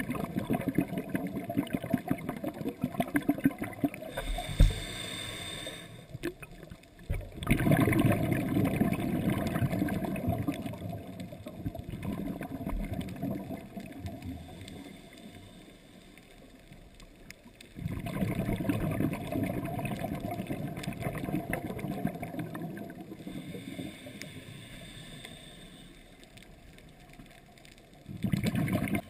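A scuba diver breathing through a regulator underwater: exhaled bubbles gurgle out in bursts a few seconds long, about every ten seconds, with a fainter, higher hiss of inhalation before some of them.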